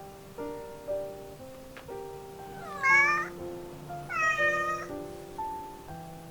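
A young cat meows twice, about three and four and a half seconds in: a short bent call, then a longer, flatter one. Its voice is changing as it grows up. Light background music with plucked notes plays throughout.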